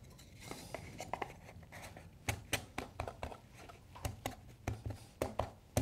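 Light, irregular wooden clicks and taps as thin mitred timber lining strips are pressed by hand into a tight fit inside a small wooden box. The clicks are sparse at first and come more often after about two seconds.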